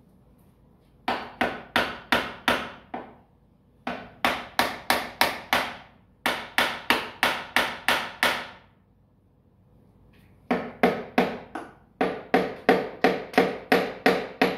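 Hammer blows on the metal of a stripped-down Ford 7610 tractor engine, in five runs of quick, evenly spaced strikes, about three a second, with short pauses between runs.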